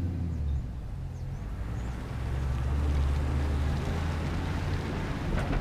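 A steady low engine rumble.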